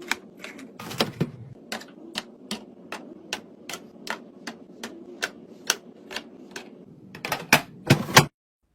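A quick run of sharp clicks and taps, about two or three a second, from hard items and containers being handled and set down while restocking; a few louder knocks near the end, then it cuts off suddenly.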